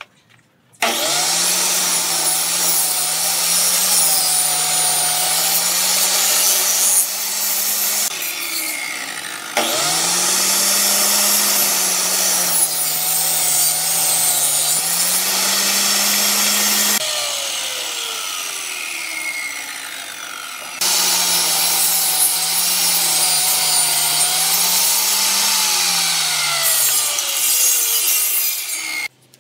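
Table saw cutting plywood in three long passes, its motor hum dipping and recovering in pitch as the blade takes the wood. Between passes the saw spins down, its pitch falling.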